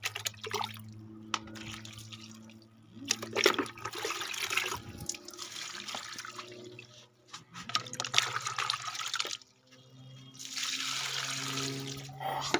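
Water poured from a plastic mug onto the soil of terracotta flower pots, in several separate pours of a second or two each with short pauses between.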